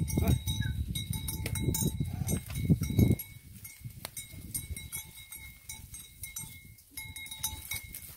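A small flock of sheep moving past, with occasional bleats, scattered clicks and a faint steady ringing that breaks off now and then. A louder low rumbling fills the first three seconds.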